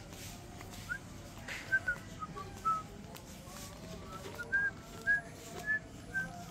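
A series of about a dozen short, clear whistled notes at slightly varying pitch, coming irregularly, some gliding briefly up or down, over a steady low background hum.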